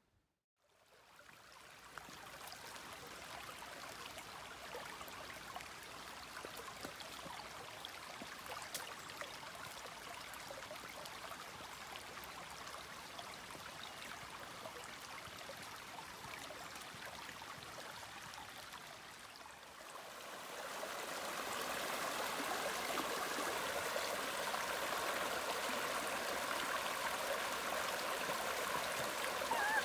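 Bohunický stream, swollen by heavy rain, rushing and splashing over rocks. The sound fades in about a second in and grows louder about two-thirds of the way through, where the water runs over a small cascade.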